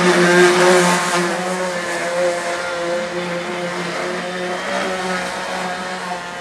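Cordless power tool motor running steadily with a constant hum while it sands the wooden carving to smooth off sharp edges; it gets a little quieter about a second in.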